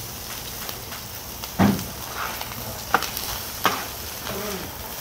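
Chopped pork offal and whole garlic cloves sizzling on a flat-top griddle as they are stirred, with metal cooking utensils clacking against the plate three times, the first about one and a half seconds in and the loudest.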